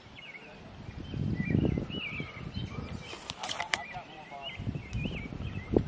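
Small birds singing in short, wavy, repeated phrases, with wind gusting on the microphone. A brief burst of sharp clicks and a low call comes about halfway through.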